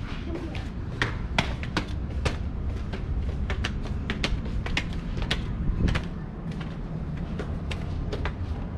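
Footsteps climbing concrete stairs and crossing a tiled deck, with a child's plastic clog sandals slapping on the stone: irregular sharp clicks, about two or three a second, over a low steady rumble.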